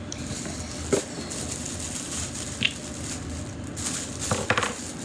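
Jiggly slime squishing as it is worked out of its bottle by hand, with a few short sharp clicks and pops: one about a second in, one past the middle, and a quick cluster near the end.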